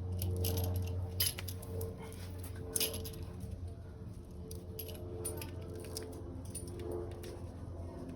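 Screen roller pressing spline and mesh into a window screen frame's channel: light clicking and rattling as the wheel runs along the frame, with two sharper clicks about a second and nearly three seconds in, over a steady low hum.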